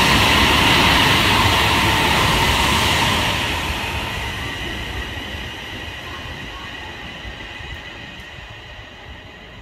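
A train passing along the platform. It is loud for about three seconds, a rumble with high steady ringing tones over it, then fades steadily as it moves away.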